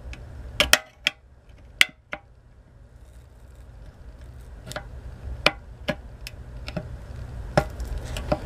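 Small hand opener working around the lid of a sealed metal ammunition tin (spam can), giving a dozen or so sharp, irregular metal clicks as it bites and levers into the tin, with a lull of a couple of seconds in the middle.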